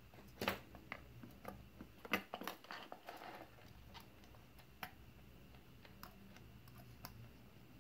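Faint scattered clicks and rustles of test-lead wires and a crocodile clip being handled over a phone circuit board, busiest in the first three seconds, over a faint steady hum.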